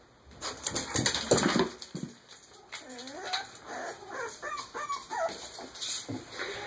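A mother dog licking and nuzzling her puppies in their bedding, with loud licking and rustling noises for the first two seconds. Then the young puppies whimper in many short, high cries that rise and fall.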